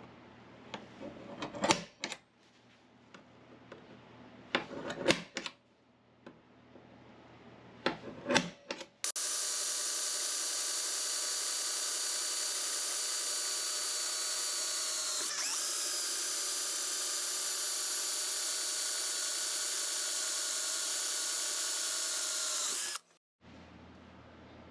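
A few sharp knocks and clanks, then an angle grinder runs at a steady speed for about fourteen seconds, a high whine over a hiss, and cuts off abruptly.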